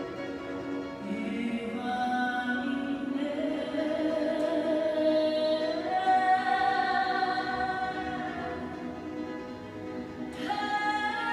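A group of voices singing long held notes in harmony, unaccompanied choir style, the chord shifting every few seconds, with a louder new phrase entering near the end.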